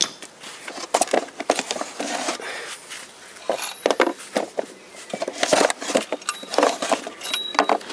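Irregular metal knocks and clanks from a GM Ecotec 2.2-litre engine block as it is tipped over and struck while the glued crankshaft bearing carrier is worked loose from it.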